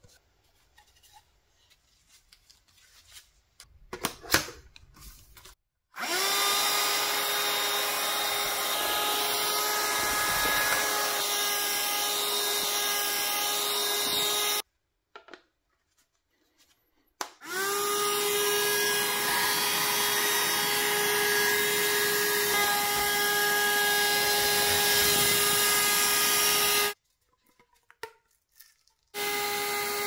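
Small battery-powered handheld vacuum cleaner switched on three times: each time the motor spins up with a short rising whine and settles into a steady high-pitched hum, running about nine to ten seconds before cutting off, and the third start comes near the end. Before the first start, plastic attachments are handled with a few light clicks.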